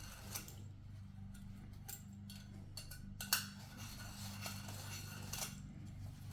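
A few light metallic clicks and scrapes from handling copper pipe and a tubing cutter, the sharpest about three seconds in, over a steady low hum.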